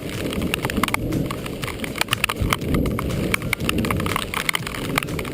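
Many quick, irregular clicks and taps over a steady low rumble, in heavy rain.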